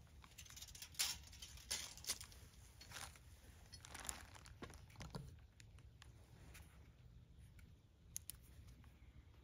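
A few faint clicks and rustles from a metal pipe-railing holder being handled and held against a wooden post, most of them in the first half, over a low steady background hum.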